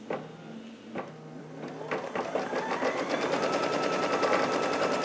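Brother Luminaire embroidery machine starting to stitch: a few clicks, then the motor winds up with a rising whine about two seconds in and settles into rapid, even stitching.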